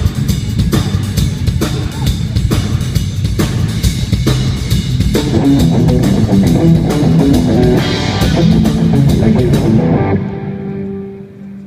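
Bass guitar and drum kit playing together through a big arena PA: a steady beat of drum hits nearly once a second, with the bass line getting busier about halfway through. The band stops near the end and one low note rings on. The low end carries a 30-cycle resonance that the sound engineer puts down to a hollow chamber under the stage floor.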